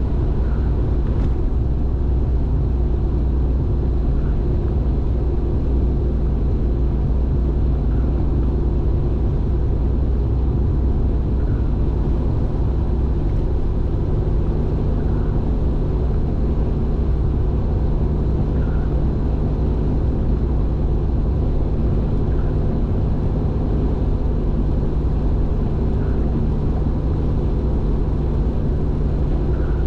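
Car cruising at steady highway speed, heard from inside: a constant low drone of engine and tyre road noise with steady low engine tones. Faint short blips recur about every three and a half seconds.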